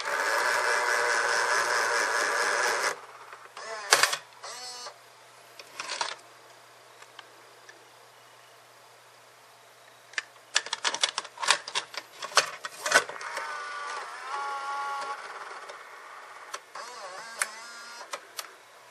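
Sony EV-C8u Video8 deck's motorised cassette mechanism whirring loudly for about three seconds as it ejects, followed by a few clicks. Later comes a quick run of plastic clicks and clacks from the cassette compartment being handled, then a quieter whirr with a steady hum of tones from the deck's tape mechanism.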